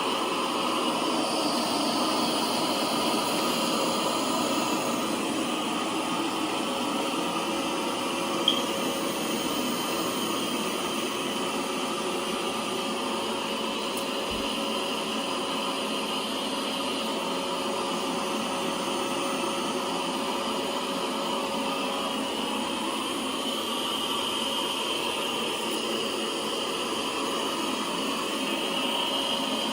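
Lefant M3 robot vacuum running steadily, its suction fan whirring with a faint steady whine while it vacuums up powder on a zone clean. A single short tick about eight seconds in.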